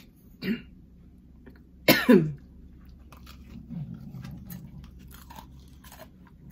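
A woman coughs twice, the second cough about two seconds in and the louder, then chews crunchy food with small scattered crunches.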